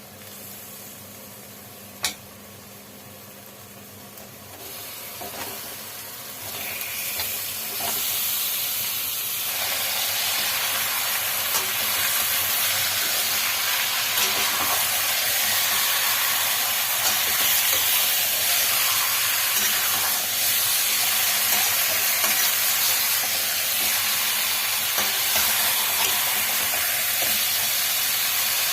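Food frying in a pan. There is a sharp click about two seconds in, then a sizzle that builds over a few seconds and holds loud and steady.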